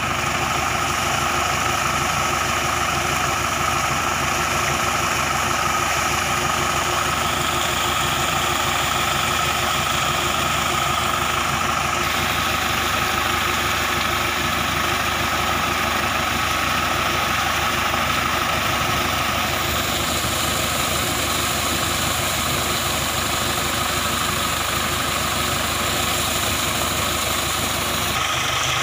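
An engine idling steadily under the continuous rush and splash of a heavy jet of water from a motor pump's outlet pipe striking a tractor's tyres and bodywork.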